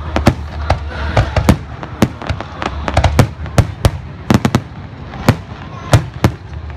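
Aerial fireworks shells bursting overhead in a rapid, irregular string of sharp bangs, some coming in quick clusters, over a steady low rumble.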